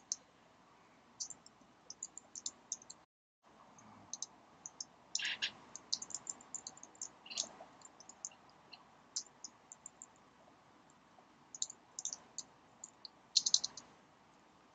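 Computer keyboard keys clicking as code is typed: irregular short keystrokes in small bursts, busiest about five seconds in and near the end. The sound cuts out to dead silence for a moment about three seconds in.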